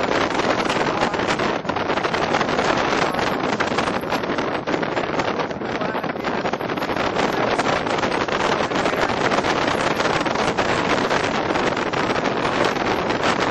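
Wind buffeting the microphone in the open bed of a moving pickup truck: a loud, steady rushing noise with the truck's road noise underneath.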